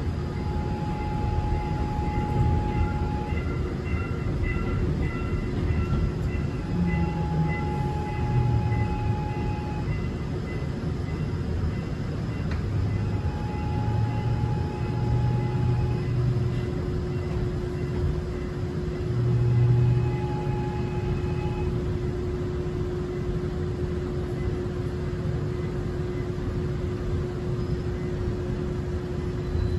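Gwangju Metro Line 1 subway train running, heard inside the passenger car: a continuous rumble of wheels and running gear under a steady hum. A clear tone lasting two to three seconds recurs about every six seconds.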